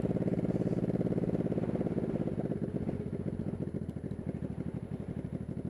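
1985 Honda Shadow VT700C's V-twin engine running under way. About halfway through, its note grows quieter and more pulsing.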